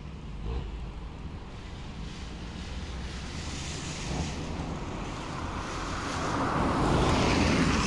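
Rushing water of a storm-swollen river, with wind buffeting the microphone as a low rumble. The rushing noise swells louder over the last few seconds.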